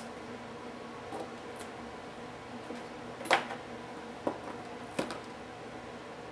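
A few sharp clicks and taps of small laptop parts and tools being handled during disassembly, the loudest about three seconds in, over a steady faint hum.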